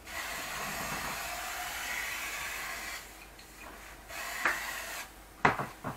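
Aerosol can of silicone spray hissing steadily for about three seconds, then stopping, as the tyre is lubricated so the stiff bead will slip onto the rim. A light knock and a couple of clicks come near the end.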